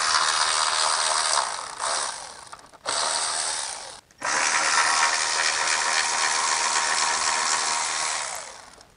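Cordless electric ratchet running in three spurts as it backs out the T40 Torx bolts holding the idle air control valve: a run of about two seconds, a short one about three seconds in, then a longer run of about four seconds that trails off near the end.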